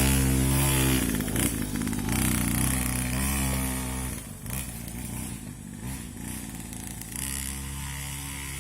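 Small two-stroke brush-cutter engine fitted to a child's grasstrack minibike, running. It holds a steady note at first, then its pitch wavers up and down as it grows fainter, and it settles back to a steady note near the end.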